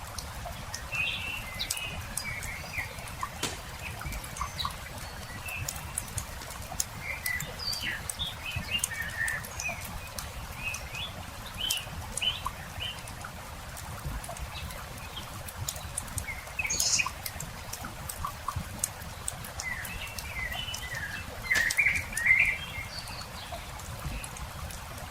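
Small birds chirping on and off, with a busier burst of calls near the end, over the crackle and pop of a wood campfire and a steady low rumble underneath.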